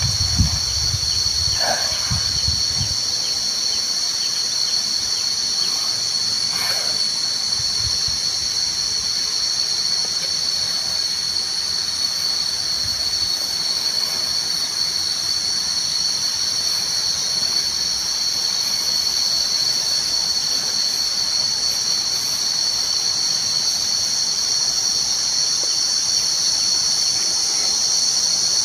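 A chorus of insects keeps up a steady high-pitched drone. A few low thumps come in the first few seconds.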